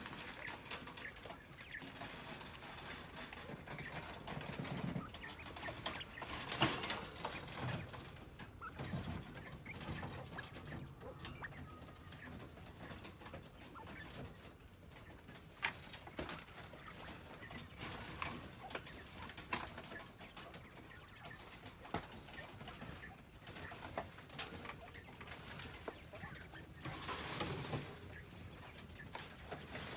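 Caged quail making soft calls and clucks, with scattered sharp clicks and taps from the birds moving about the wire cages.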